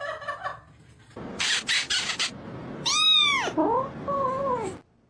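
A domestic cat vocalising: a short hiss-like burst, then a loud meow about three seconds in that rises and falls in pitch, followed by a lower, drawn-out meow. The sound cuts off abruptly near the end.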